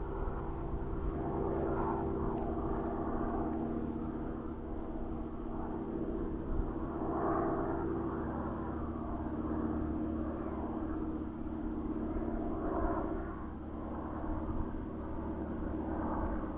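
The motor and 10x7 propeller of a 3D-printed P-51 Mustang model running steadily, with a swelling, wavering buzz every few seconds.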